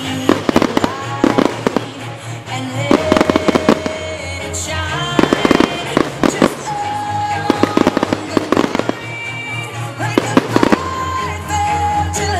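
Aerial fireworks shells bursting with sharp bangs and crackling, in repeated volleys every second or two. Music with a steady bass line plays underneath.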